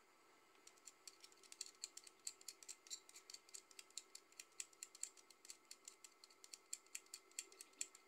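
Utility knife blade scraping in quick short strokes at the metal jaw of a jumper-cable clamp: a faint, rapid run of small sharp clicks, several a second, starting under a second in.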